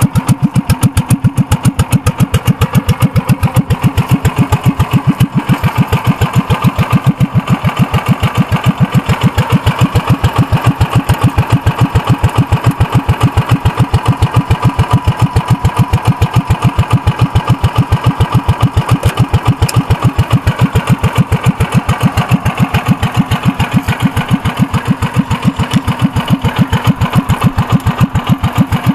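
Commuter TE390 three-wheeler's 341 cc Kawasaki industrial engine idling through a straight-pipe exhaust, a loud, even, steady beat.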